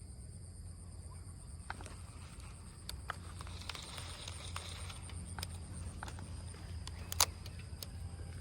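Outdoor ambience with a steady high insect buzz over a low hum, broken by scattered sharp clicks and taps, the loudest about seven seconds in.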